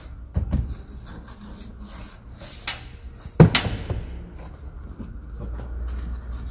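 A few knocks and plastic clicks as a truck cab door's interior trim panel is pressed and tapped into its clips, the loudest knock about three and a half seconds in.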